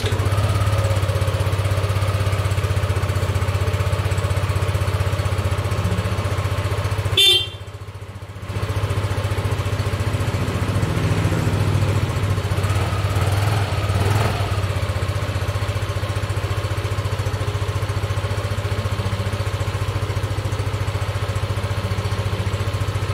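Yamaha NVX scooter's single-cylinder engine idling steadily. Just after seven seconds there is a short sharp sound, the engine cuts out for about a second, then it runs again at the same steady idle.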